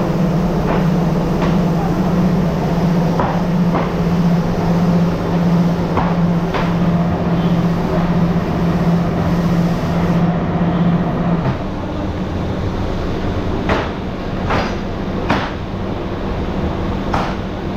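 Factory machinery running with a steady low hum that stops about eleven seconds in, along with scattered knocks and clanks that grow more distinct near the end.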